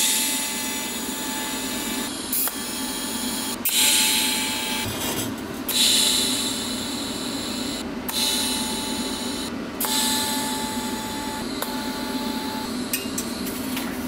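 DC TIG welding arc on a steel exhaust header, hissing in several stretches broken by short gaps as the joint is tacked, over a steady hum underneath.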